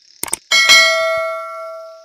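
Two quick clicks, then one loud bell-like metallic strike that rings on with several steady tones, fading over about a second and a half before cutting off abruptly.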